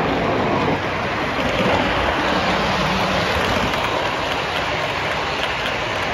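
O gauge model passenger cars rolling past on three-rail track, a steady rushing noise of wheels on rail.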